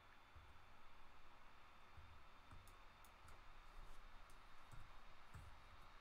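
Faint, scattered clicks from a computer mouse and keyboard, a handful of them, mostly in the second half, over quiet room tone.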